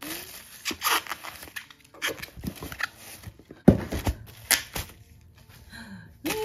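Bubble wrap crinkling and rustling as bubble-wrapped CD albums are handled and pulled out of a cardboard box, with one sharp thump a little past halfway through as a package is set down.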